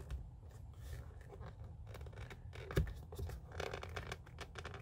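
Jeep ZJ side-mirror glass being pressed and slid by hand into its mirror housing, giving faint scraping and rubbing of plastic with a single sharper knock a little under three seconds in, as the glass is worked down to click into place.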